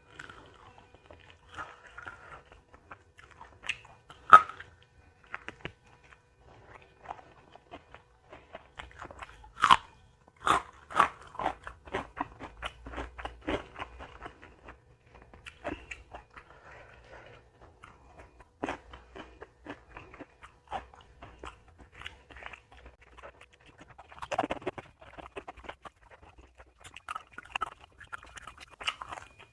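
Close-miked eating: a person chewing and biting into crunchy food, with sharp cracking bites about four and ten seconds in, a quick run of crunches after the second, and another hard bite near the end.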